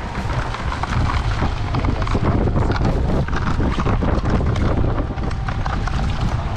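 Wind buffeting the microphone over a quick, irregular patter of splashes and small knocks as a cast net is shaken out and sardines drop into a plastic bucket standing in shallow sea water.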